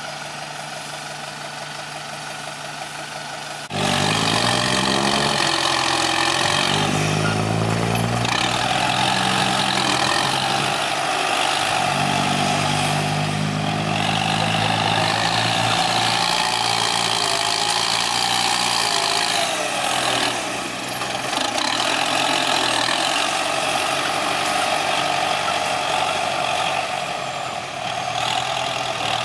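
Kubota M9540 tractor's four-cylinder turbo diesel engine running, quieter and steady at first. About four seconds in it turns suddenly louder, and its speed rises and falls as the tractor works the soil with its front blade.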